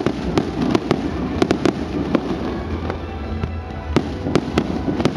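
Aerial fireworks going off: a rapid, irregular string of sharp bangs and pops.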